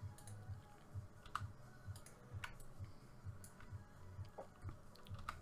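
Faint computer keyboard and mouse clicks, single sharp clicks coming about once a second, as keys are pressed and the mouse is clicked.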